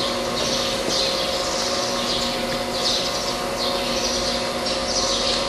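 CNC slotting machine running: a steady electric hum with several constant tones, and a hiss that swells and fades roughly once a second.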